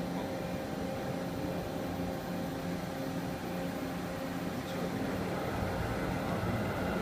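Milling machine running, with a steady hum made of several tones, as a coated carbide insert cutter mills an Inconel block. About five and a half seconds in it gets a little louder and a higher steady whine joins.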